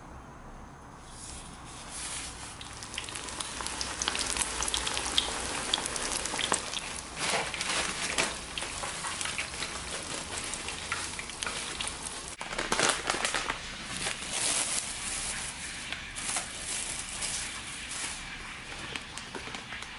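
Panko-breaded chicken cutlet deep-frying in hot oil in a small pot: steady sizzling with dense crackles and pops, starting about a second in.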